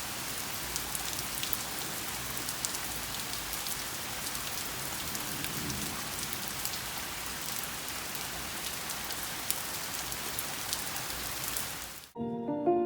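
Heavy rain falling steadily, with a scatter of sharp drop ticks. About twelve seconds in it cuts off abruptly and piano music begins.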